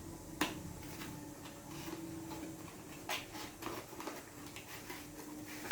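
A few sharp clicks and taps as a plastic water bottle is handled and opened, over a faint steady hum.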